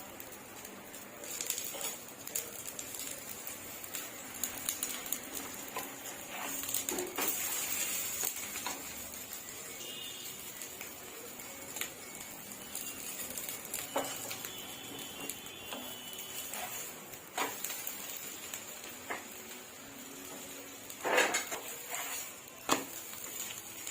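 Aloo paratha frying in a little oil on a flat tawa: a steady sizzle, with a spatula knocking and scraping on the pan now and then, sharpest in a few knocks near the end.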